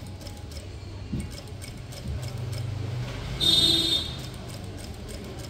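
Industrial single-needle sewing machine stitching heavy embroidered lehenga fabric: a low motor hum with small, even needle ticks, picking up a little about two seconds in. About three and a half seconds in there is a short, high-pitched whine, the loudest moment.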